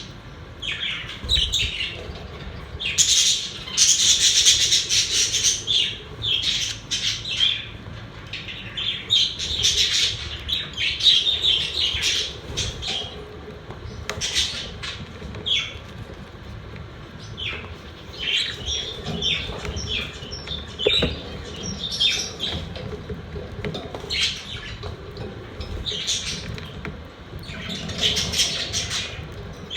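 Budgerigars chirping, chattering and squawking in quick, irregular bursts, several birds calling over one another.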